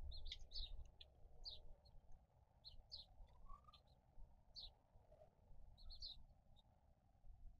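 Faint, scattered chirping of small birds: a run of short high chirps every half second or so, over a low steady background rumble.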